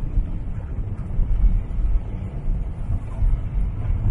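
Wind buffeting the microphone over the low, steady rumble of a moving car.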